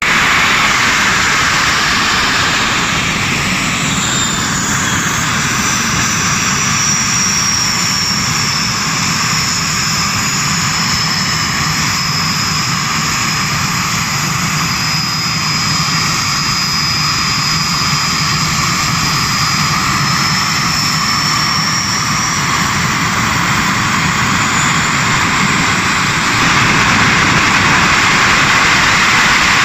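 An engine running steadily, with a high whine that slowly drops in pitch and then rises again; it gets a little louder near the end.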